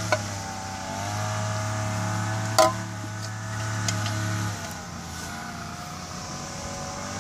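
A steady engine drone with a slightly wavering pitch; its low hum drops away about four and a half seconds in. A sharp knock about two and a half seconds in is the metal camping pot being set down on a wooden board.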